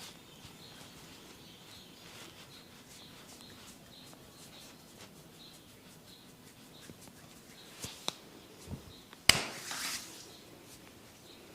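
Soft rubbing and faint tapping of hands working over a person's head, with a few sharp clicks from about eight seconds in, the loudest about nine seconds in, followed by a brief rustle.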